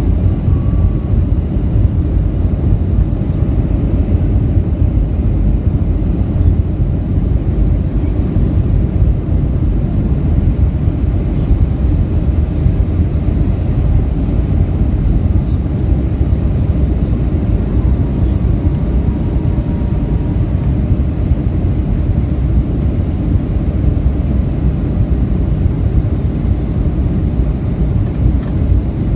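Steady, deep rumble of engine and airflow noise inside the cabin of a Boeing 757-200 during its descent, heard from a window seat over the wing.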